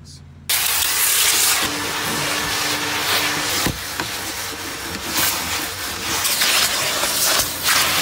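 Car wash vacuum sucking through a crevice nozzle dragged over car carpet: a loud, steady airflow hiss that rises and falls slightly as the nozzle moves. It cuts in abruptly about half a second in, with a single knock near the middle.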